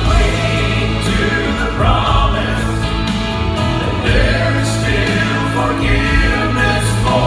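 Gospel vocal quartet singing a hymn in harmony, with held low bass notes underneath.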